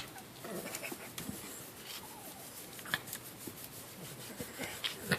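Elderly miniature dachshund making soft, low grumbling 'rubble' noises while having her belly rubbed, over the rustle of a hand rubbing her fur, with a couple of sharp clicks.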